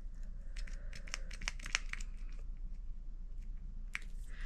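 New twist-lock pump on a bottle of Estee Lauder Double Wear foundation being turned to unlock and then pumped. It makes a quick run of quiet plastic clicks, with one more click near the end.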